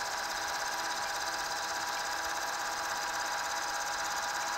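Southwestern Industries Trak K3 CNC vertical mill running under program, its end mill cutting a circular pocket in a metal block as the CNC-driven X and Y axes move the table outward from the centre. A steady, even machine sound with several constant tones.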